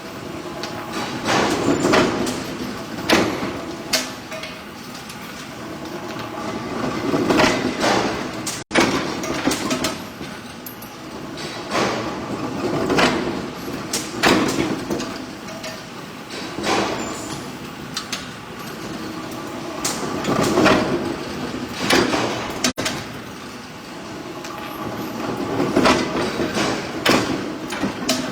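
Metal struck again and again in forging heavy bolts: sharp blows at irregular spacing, some in quick pairs, over a rough clatter that swells and fades every few seconds.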